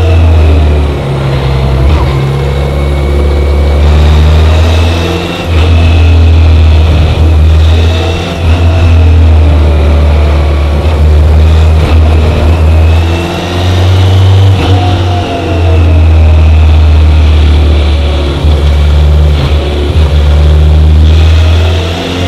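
BMW K1100LT's inline four-cylinder engine running under way, its note rising and falling with the throttle and dropping away briefly several times.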